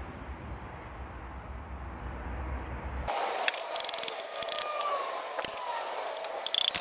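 Low steady hum, then an abrupt change in the background about three seconds in, followed by bursts of quick metallic clicking and rattling from hand tools and engine parts during the engine teardown.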